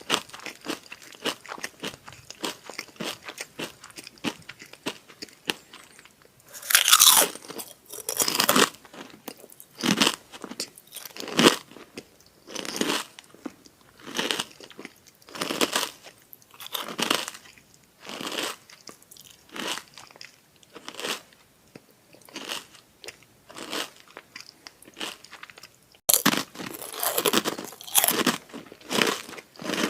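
Someone biting into and chewing krupuk (crispy Indonesian crackers) close to the microphone. There are loud crisp bites about a quarter of the way in and again near the end, with crunchy chewing about once a second in between.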